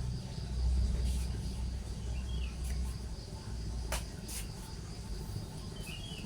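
Open-air kitchen ambience during stir-fry cooking: a low steady rumble under a steady high insect chirring, with a few short sharp clicks and two faint short chirps.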